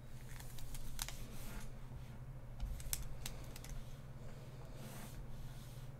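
Desk sounds of digital drawing: a few sharp clicks and short scratchy strokes of a pen stylus on a graphics tablet and keyboard keys, over a steady low hum.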